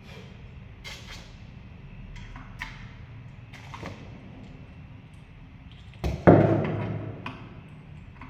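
A few sharp clicks and knocks, then one loud knock about six seconds in that rings off over about a second, over a low steady hum.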